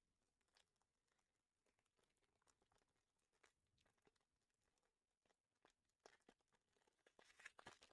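Very faint crinkling and tearing of a foil trading-card booster pack wrapper being opened by hand: a few soft crackles scattered through, coming more often near the end.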